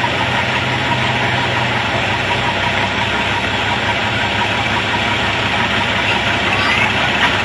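Oliver farm tractor's engine idling steadily as the tractor creeps backwards to hook up to the pulling sled, its note shifting slightly about two seconds in.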